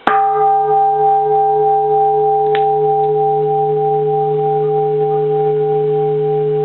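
Large bronze Japanese Buddhist temple bell struck once, then ringing on with a deep, long sustain of several steady tones, the lowest one wavering slowly. A faint click comes about two and a half seconds in.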